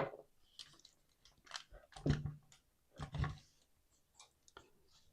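Small clicks, rustles and scrapes of plastic parts being handled as the speaker is worked out of a clock radio's plastic case, with two louder bumps about two and three seconds in.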